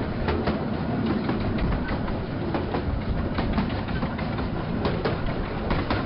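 Miniature railway coach rolling along the track, heard from on board: a steady rumble with irregular sharp clicks from the wheels over rail joints.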